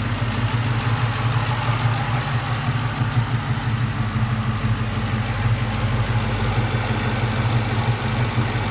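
Ford Mustang GT's 4.6L V8 (1999–2004 model) idling steadily, with the light ticking noise the owner heard while driving; he does not know its cause.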